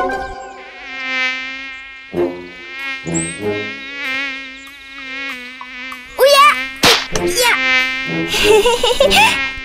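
Cartoon mosquito buzzing: a steady, wavering whine that swells and fades as it flies about, loudest in swoops about six to seven seconds in.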